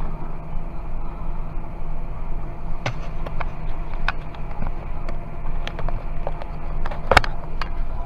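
John Deere 6190R tractor's six-cylinder diesel engine running steadily under ploughing load, heard inside the cab. From about three seconds in, a series of sharp clicks and knocks as the cab camera is handled and repositioned, the loudest near the end.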